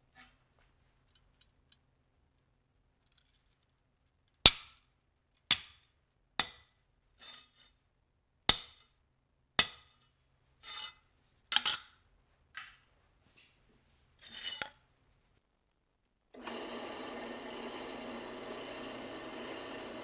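A series of about ten sharp metallic clinks and taps, roughly one a second, from handling metal tools or workpieces. Near the end a steady machine noise starts abruptly.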